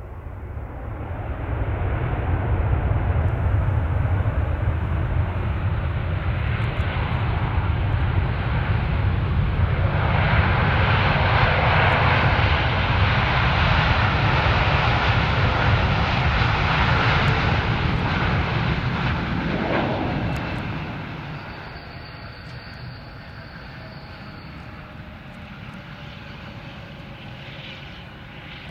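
Boeing 787-8 Dreamliner's twin turbofan engines during the landing roll: a loud rushing jet noise with a deep rumble. It builds over the first couple of seconds and drops off sharply about twenty seconds in as the airliner slows, leaving a lower, steady engine noise.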